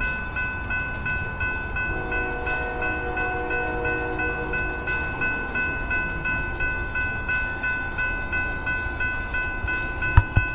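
Railroad crossing warning bell ringing in a fast, even repeat while the crossing gates lower. About two seconds in, a train horn chord joins it from down the line. Two sharp knocks come near the end.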